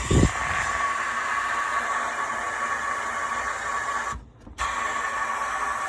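Sandblasting in a blast cabinet: a steady hiss of compressed air and abrasive that stops briefly about four seconds in, then resumes.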